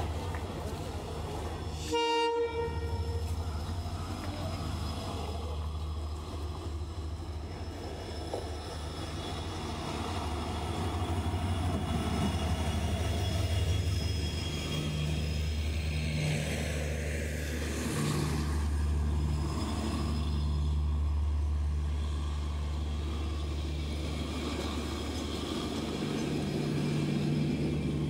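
WDP4D diesel-electric locomotive, with a two-stroke EMD diesel engine, sounds one short horn blast about two seconds in. Its engine then drones low and steadily, growing louder as it draws up and passes, followed by the rumble of its coaches rolling by.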